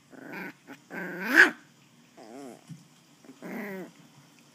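West Highland white terrier puppy play-growling in four short bursts, the second rising into a loud, high yap.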